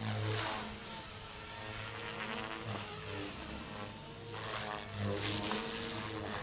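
Compass Warp 360 electric RC helicopter with Pro 3D rotor blades flying, its rotor whir and motor whine rising and falling in pitch as it maneuvers and passes by. It is loudest right at the start and again about five seconds in.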